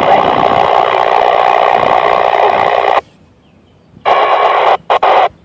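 Static from a Kenwood 2-metre FM mobile transceiver as the International Space Station's voice downlink fades out. The static cuts off abruptly about three seconds in as the squelch closes, then comes back in three short bursts as the frequency is retuned for Doppler shift.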